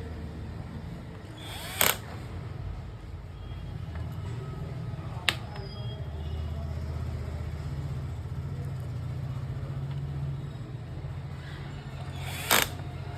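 Three sharp clacks of plastic and metal keyboard parts being handled during reassembly, about two seconds in, five seconds in and near the end, over a steady low hum.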